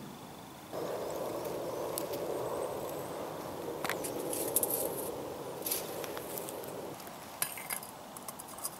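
Metal clinks as a brass alcohol burner is handled and its snuffer cap is set on to put out the flame, with a few sharp clicks near the end. A steady rushing noise runs under most of it.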